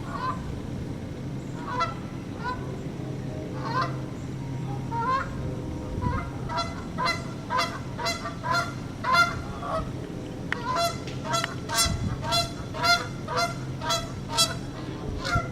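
Canada geese honking, the male calling to the female. A few scattered honks come first, then from about six seconds in a quick run of honks, about two a second, over a steady low hum.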